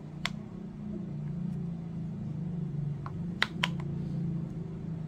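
Sharp plastic clicks from an e-scooter thumb throttle's trigger and housing being handled: one near the start, then three close together a little past the middle. A steady low hum runs underneath.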